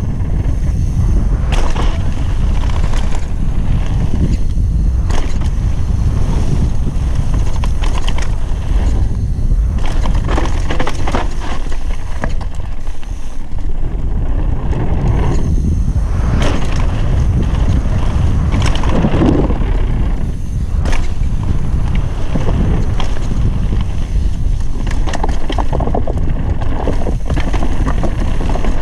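Wind rushing over a GoPro's microphone on a fast mountain-bike descent, with the bike rattling and its tyres clattering over wooden boardwalk planks and dirt in many short knocks.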